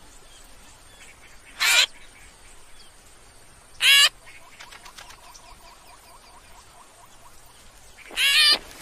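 Cartoon baby-bird voices: plump chicks in a nest giving short squeaky peeps, one about two seconds in and another about four seconds in, then a louder run of calls near the end. Faint background chirps sit underneath.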